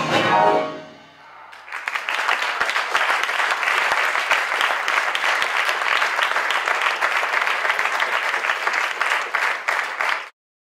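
The last notes of music die away in the first second; after a short lull an audience breaks into steady applause, which cuts off abruptly near the end.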